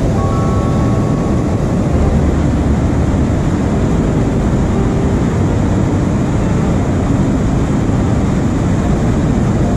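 Steady, loud rush of water pouring over a dam spillway and churning through the rapids below it.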